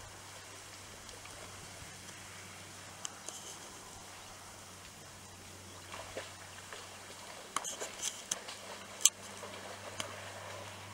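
Faint outdoor ambience with a low steady hum, broken by a few sharp clicks and crackles, most of them in the second half and the loudest about nine seconds in.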